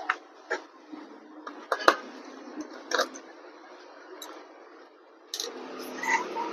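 Scattered sharp clicks and taps of small tools and laptop parts being handled during disassembly, including a quick double click near the middle, followed by a short stretch of scraping and rustling near the end.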